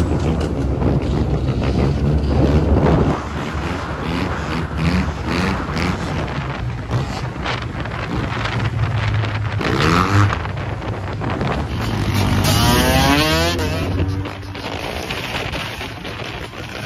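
Motorbike and maxi-scooter engines revving hard, the revs rising and falling with the throttle; two rising whines stand out, one about ten seconds in and a longer one about two seconds later.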